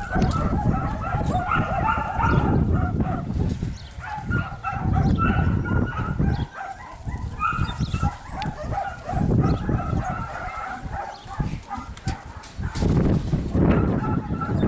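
Dog yipping and barking over and over in quick, broken runs, with bouts of low rumbling noise in between.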